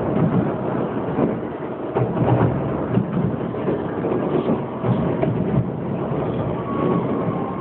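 A fireworks display going off in a dense barrage: many shell bursts overlapping into a continuous rumble, with sharper bangs standing out at irregular intervals about every second.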